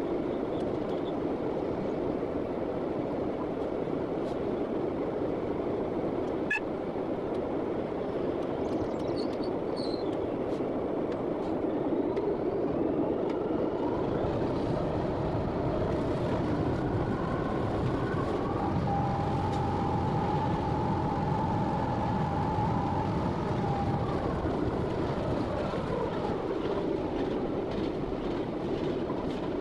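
Class 66 diesel locomotive heard from its cab while running, its two-stroke V12 engine and running gear making a steady rumble. A high whining tone comes in about halfway through, holds for several seconds, then fades.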